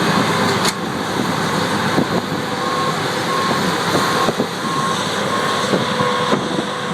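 Heavy farm machinery running steadily during a silage corn harvest, with a backup alarm beeping at an even pace, roughly one to two beeps a second, from about a third of the way in to near the end.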